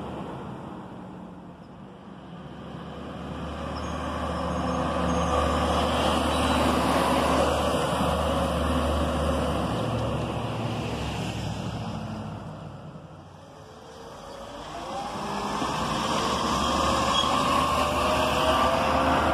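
Crane Carrier (CCC) garbage trucks driving by on a street: engine and road noise swell as one truck passes and fades. A second truck then builds up close near the end with a rising whine as it gathers speed.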